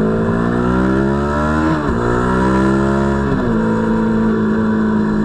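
Yamaha YZF-R3's parallel-twin engine through a DG V2 full exhaust, accelerating under load: the revs climb, drop at an upshift about two seconds in, climb again, drop at a second upshift, then hold steady at cruising speed.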